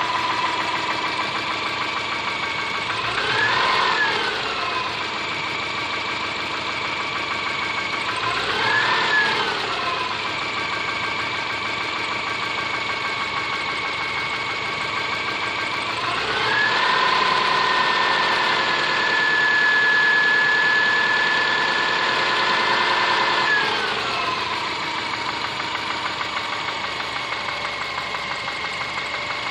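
Subaru Forester SG5's EJ25 2.5-litre flat-four engine idling with the knock the owner complains of. It is blipped briefly twice, then held at raised revs for about seven seconds before settling back to idle.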